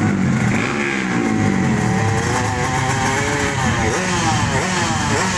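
Motorcycle engines revving at the start line, several at once, their pitch falling and rising repeatedly as the throttles are blipped.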